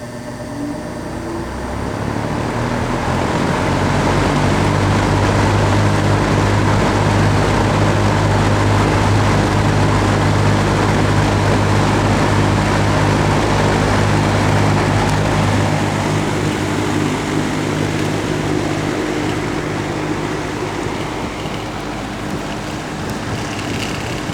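Vintage McGraw Edison Eskimo 20-inch box fan started on high: the motor hum and the rush of air from the blades build up over the first few seconds as it spins up, then run steadily. The fan is unoiled, in as-received condition, and the owner says it needs oil.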